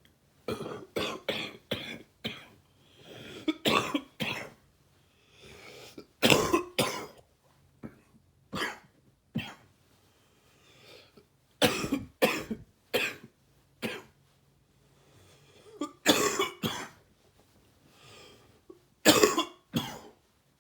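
A man coughing in repeated fits, wet, gaggy coughs from a cold, with breaths drawn in between the fits. The loudest fits come about six seconds in, about sixteen seconds in, and near the end.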